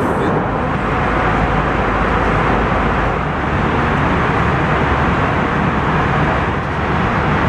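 Steady cabin noise of an Airbus A321 in flight: the even rush of airflow and jet engines heard from inside the cabin.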